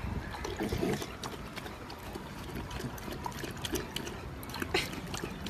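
An English bulldog drinking straight from a drinking-fountain spout: water running and splashing around its mouth, with irregular wet slurping clicks.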